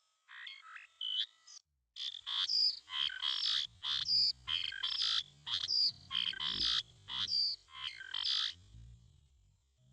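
Bulbul calling: a quick series of short, harsh, chattering notes that bend in pitch, about two a second, with a short break near the start.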